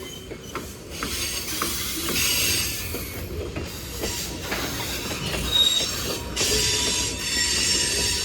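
Freight train cars rolling past with the wheels squealing against the rails in high, thin tones that rise and fade in waves over a low rumble, with an occasional click from the wheels.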